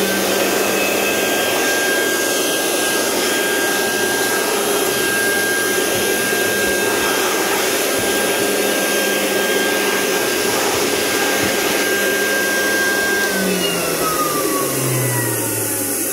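Vintage Wolf NWBE electric air blower running at full speed: a steady motor whine over rushing air. About 13 seconds in it starts winding down, its whine falling steadily in pitch.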